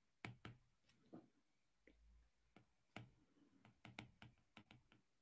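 Near silence with faint, scattered clicks and taps, about a dozen, from a stylus writing on a pen tablet.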